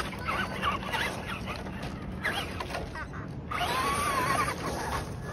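Electric RC off-road truck driving on wet pavement: its motor whine rises and falls in short throttle bursts. From about three and a half seconds to nearly five seconds there is a longer run of wavering motor whine with tyre hiss.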